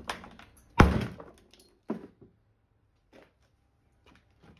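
A hammer strikes a slab of road asphalt once, hard, about a second in, and splits it. A few faint knocks follow as the broken pieces are handled.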